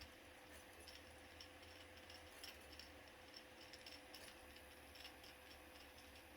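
Near silence: room tone with faint, scattered light clicks and taps.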